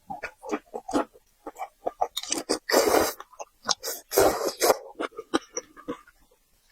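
Close-miked eating of raw marinated prawns: wet chewing and crunching clicks, with two longer, louder slurps about three and four seconds in.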